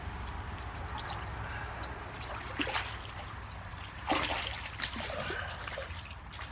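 Water splashing and trickling at the shoreline as a hooked smallmouth bass thrashes near the surface, with sharper splashes about two and a half and four seconds in.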